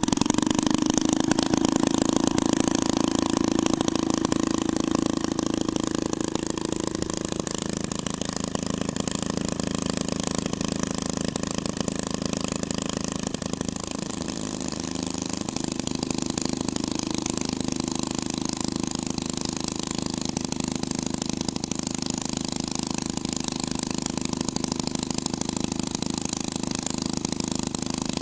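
Hot rod twin-engine running steadily at idle, louder for the first several seconds and then settling. About halfway through the engine note dips briefly and comes back up.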